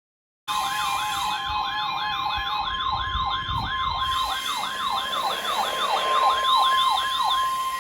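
First Alert WX-167 weather radio alarm sounding for a severe thunderstorm warning. A rapid warbling siren repeats about three times a second over a steady high tone, the NOAA Weather Radio 1050 Hz alert tone. It starts about half a second in and stops just at the end.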